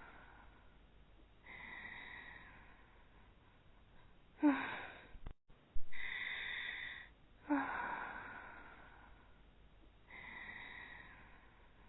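Exaggerated, voice-acted anime snoring, over and over: a long wheezy in-breath, then a sudden louder out-breath that drops in pitch. The sound cuts out briefly about five seconds in.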